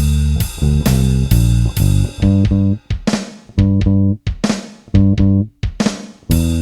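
Bronco electric bass with a G+B Toaster neck pickup and flatwound strings, played without a compressor: a blues bass line in short phrases with brief breaks between them. A drum kit keeps time alongside, with sharp hits and cymbal.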